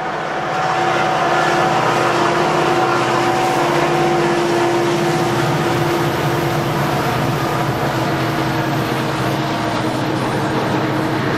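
Manifest freight train passing slowly as it climbs: the lead diesel locomotives' engines grow loud over the first second, with a steady hum of several held tones, then boxcars keep rolling by on the rails.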